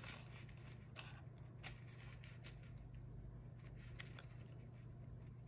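Faint clicks and small handling noises from a metal pocket watch and its chain being fiddled with as someone tries to pry its cover open, the sharpest click about four seconds in, over a low steady hum.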